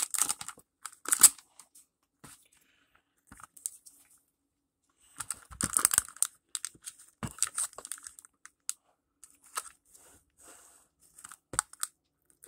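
Plastic card sleeve crinkling and rustling in gloved hands, in scattered bursts with sharp plastic clicks, as a trading card is fitted into a magnetic card holder.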